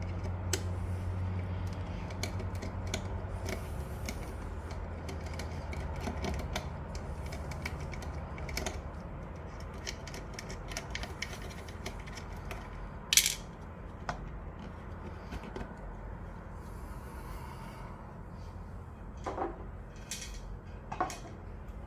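Small clicks, clinks and rattles of plastic and metal parts being handled as a watch winder's cylinder is worked loose and pried off, with a sharper snap about 13 seconds in. A low steady hum underneath fades away over the first half.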